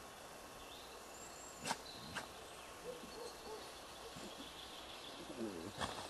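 Quiet outdoor ambience: a steady background hiss with faint high chirps and a few sharp clicks, two close together about two seconds in and one near the end.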